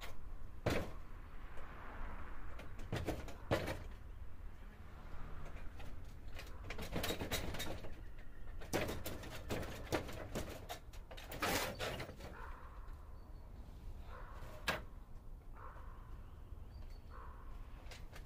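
Wooden fence gate being rattled and worked open: irregular sharp clicks and knocks of the latch and boards, some single and some in quick clusters, over a steady low hum.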